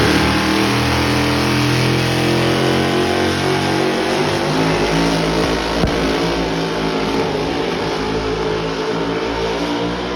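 Pro Modified four-wheel-drive pulling truck's engine running loud at full throttle down the pull track, a steady dense engine note, with a single sharp knock about six seconds in.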